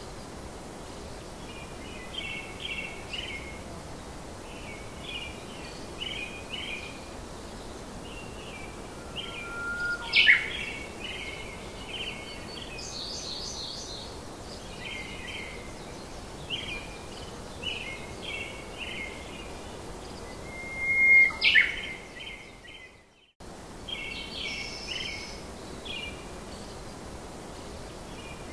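Small birds chirping in short quick groups of three or four notes over a steady background hiss, with two louder sweeping calls, about ten and twenty-one seconds in. The sound fades out and cuts back in abruptly about three-quarters through.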